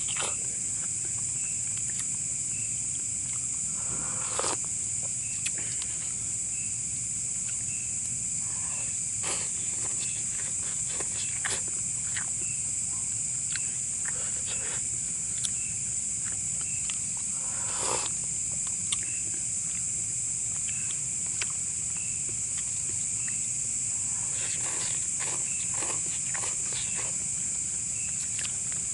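Night insects, likely crickets, keep up a steady high-pitched drone with a regular chirp repeating a little faster than once a second. Scattered short rustles and knocks, the loudest about four seconds in and around eighteen seconds in, plus a cluster late on.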